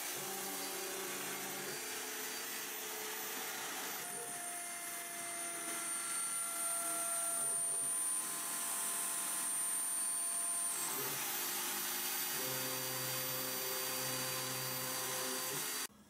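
Router spindle of a hobby CNC mill running while it cuts aluminium plate: a steady whine with hiss. Its tones shift abruptly about 4, 11 and 12 seconds in, and it stops suddenly near the end.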